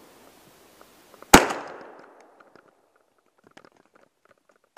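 20-gauge Franchi Affinity semi-automatic shotgun fired at a squirrel in the treetops, one shot about a second in, its blast echoing off through the woods. A second shot comes right at the very end.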